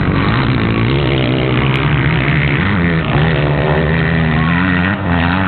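Several motocross dirt bike engines revving hard as the bikes race around the track, their pitch rising and falling and overlapping.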